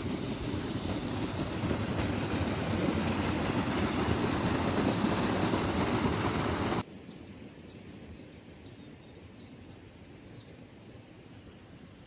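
Loud steady rushing outdoor noise that cuts off abruptly about seven seconds in, giving way to quiet outdoor ambience with faint bird chirps.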